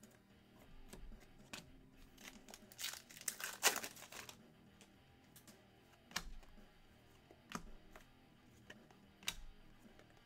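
Handling of 2021 Panini Donruss football card packs. A wrapper crinkles and tears for about a second and a half around three seconds in, and single sharp clicks of cards being handled come now and then.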